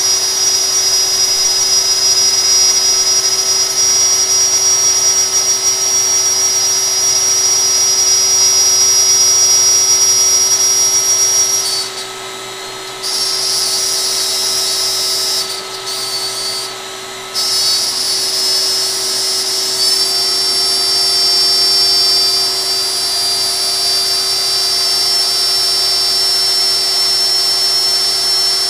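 DeWalt compact router running on a LowRider CNC as the gantry carries it through a cut: a steady high-pitched whine. The whine thins and quietens briefly about twelve seconds in and twice around sixteen to seventeen seconds.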